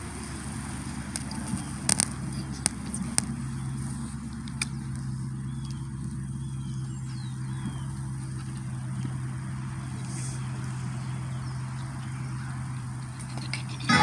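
A steady low hum with faint background noise, and a few sharp clicks in the first few seconds.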